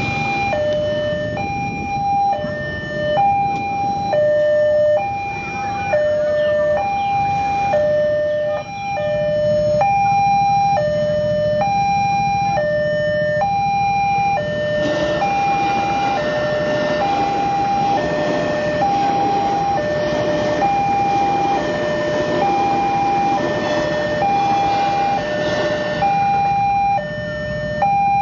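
A railway level-crossing alarm sounds a repeating two-tone electronic chime, high then low, about one pair a second, over idling motorcycle engines. From about halfway in, a KRL commuter electric train runs past with a broad rushing rumble.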